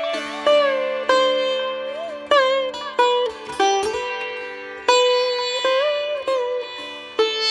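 Indian classical-style background music on a plucked string instrument: single notes plucked every half-second to second, many sliding up or down in pitch, over a steady drone.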